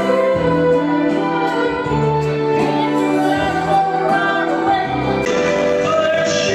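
Karaoke: a man sings through a handheld microphone over loud amplified backing music.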